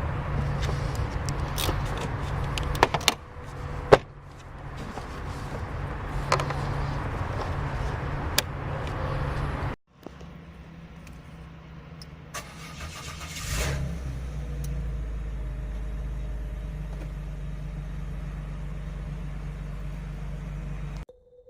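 Citroen C5's 3.0 V6 petrol engine (ES9A) running steadily, with a few sharp clicks. After a cut it is cranked and catches about two-thirds of the way in, then idles steadily: it starts and runs with the new crankshaft position sensor fitted.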